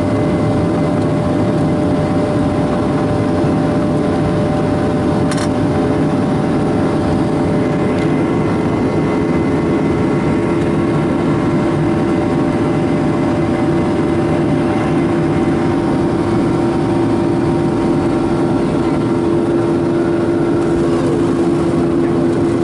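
Boeing 737-800 cabin noise while the airliner rolls on the ground: the CFM56 turbofan engines give a steady roar with several held hum tones over a low rumble. A single brief click about five seconds in.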